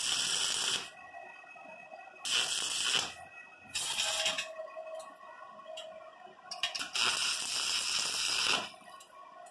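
Stick (arc) welding on a washing-machine spin drum: the electrode's arc crackles and sizzles in four bursts, the longest about two seconds near the end, as the arc is struck and broken for short tack welds on the handle.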